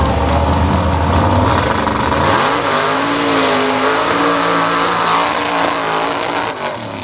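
Mud bog buggy's engine running at a low rumble, then opened up to full throttle about two seconds in as the buggy launches, its pitch rising and wavering under load.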